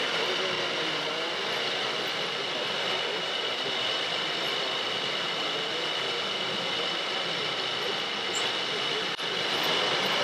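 Steady mechanical running noise with a constant high whine, typical of the small electric drives of RC model construction machines working.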